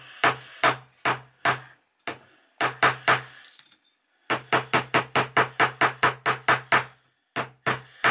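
A jewellery hammer tapping a wire pendant frame hard on a steel bench block to flatten the wire. Sharp metallic strikes, each with a short ring, come in bursts: a few spaced taps, a quick cluster, a fast run of about five a second, then a few more.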